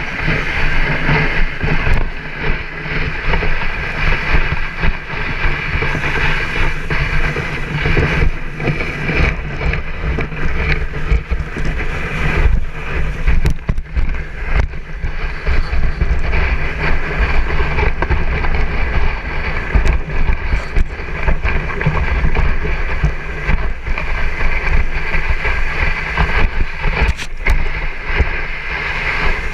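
Steady rushing noise of a dog sled travelling over packed snow and ice: the runners sliding and scraping, with wind buffeting the microphone and occasional brief knocks from the sled.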